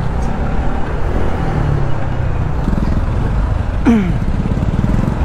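Motorcycle engine running under wind and road rumble as it rides slowly through city traffic, then settling into a steady low putter as it slows to a near stop. A short falling whine sounds about four seconds in.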